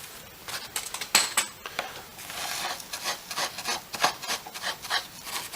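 Irregular short scraping and rubbing strokes, several a second, from hands and tools working a wire against a circuit board during soldering.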